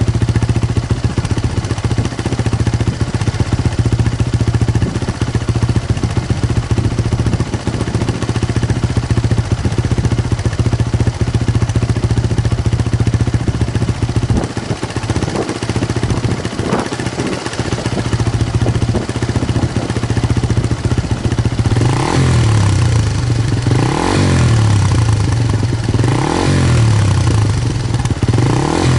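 Suzuki Gixxer SF250's single-cylinder engine idling steadily through a BEAMS CORSA-EVO II stainless full exhaust system. Past the two-thirds mark it is blipped four times, about two seconds apart, each a quick rise and fall in revs.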